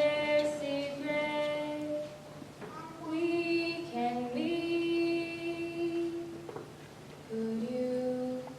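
Female voices singing a slow song in long held notes, in three phrases with short breaks between them.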